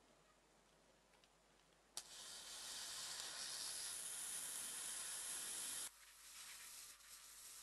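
A loud sizzling hiss that starts with a sharp click about two seconds in and cuts off abruptly about four seconds later, leaving a fainter crackling hiss.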